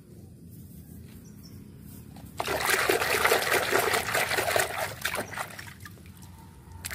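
A hand sloshing and scrubbing through a basin of soapy, muddy water while washing plastic toys. It starts about two and a half seconds in and goes on for about three seconds, with a short splash near the end.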